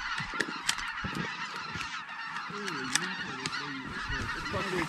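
Many geese honking as large flocks fly over, a dense steady chorus of overlapping calls, with a few nearer, clearer honks in the second half.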